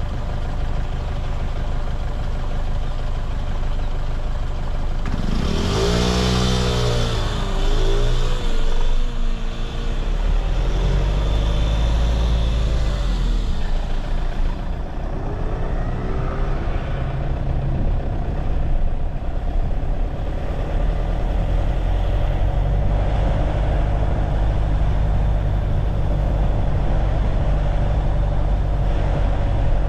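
Vehicle traffic with steady engine and road rumble. From about five seconds in, an engine revs, its pitch rising and falling for several seconds.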